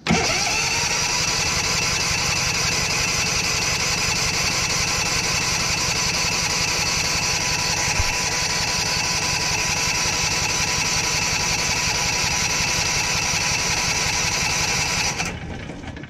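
Generac GH410 single-cylinder engine cranking on its electric starter for a compression test, with a compression gauge in the spark-plug hole so it cannot fire. The starter whine rises in the first second, then runs steadily with a fast even chug and cuts off about a second before the end. Over this cranking the gauge builds to about 165 PSI, within the 161 to 218 PSI spec.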